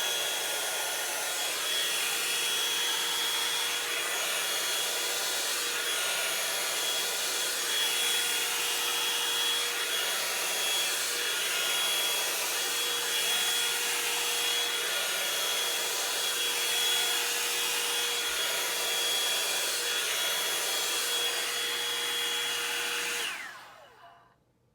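Revlon One Step paddle-brush hair dryer running on high, a steady rushing blow with a faint whine, being passed through a section of hair. It is switched off near the end, and its whine falls away as the motor winds down.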